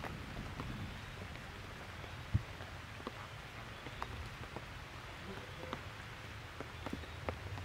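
Rain falling, with scattered drops ticking at irregular moments and one dull thump a little over two seconds in.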